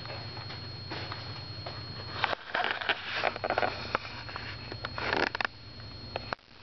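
Close rustling and sniff-like noises from the person handling the camcorder, in two bunches, about two and a half seconds in and again around five seconds. Under them run a steady low hum and a thin high whine.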